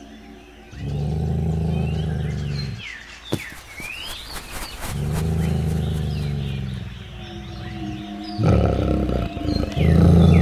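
Deep roars of a large animal, three of them, each about two seconds long with pauses of about two seconds between, the last one going on past the end. A single sharp knock falls between the first two, and birds chirp throughout.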